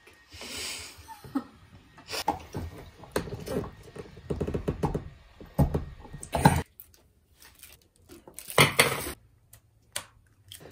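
Irregular knocks, clicks and rustles of hands working a brass SharkBite fitting and PEX tubing, with a short hiss about half a second in and a louder rustling burst near the end.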